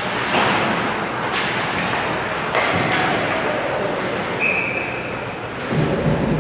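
Ice hockey play echoing in an arena: a few sharp stick-and-puck knocks, then a single referee's whistle blast of just under a second, stopping play after a scramble at the net. The din grows louder near the end.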